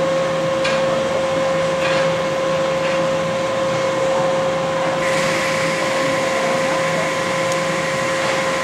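Vekoma suspended looping coaster running: a steady mechanical hum with a constant whining tone, and a louder rushing noise that joins about five seconds in as the train passes.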